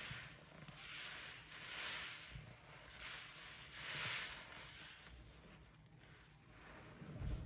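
Foam-soaked sponges squeezed by gloved hands in a basin of suds: wet squelching and fizzing foam in rhythmic squeezes about once a second, quieter after about four seconds.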